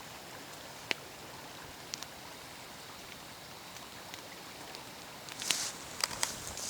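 Small campfire crackling: a few sharp pops over a faint steady hiss, with a brief rustle about five and a half seconds in.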